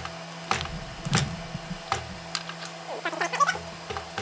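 A fly press drives a hot chisel through a bar of red-hot steel: several sharp metallic knocks and clanks over a steady low hum. About three seconds in come a few squeaky wavering sounds.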